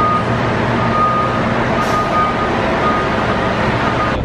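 Fire engine reversing, its backup alarm beeping about once every 0.8 s over the steady running of its diesel engine.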